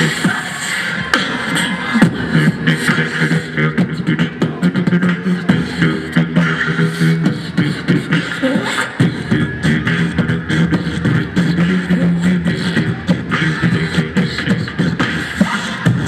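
A beatbox crew performing together through a PA: a held low bass tone under fast vocal drum sounds of kicks, snares and hi-hat clicks, in an even groove.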